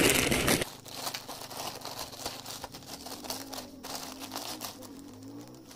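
Plastic courier mailer bag rustling and crinkling as it is handled and opened to pull the package out. The rustling is loudest in the first half second, then goes on as a run of small irregular crinkles.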